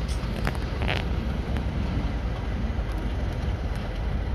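Steady low rumble of a train at the station, with wind buffeting the microphone and a couple of short clicks under a second in.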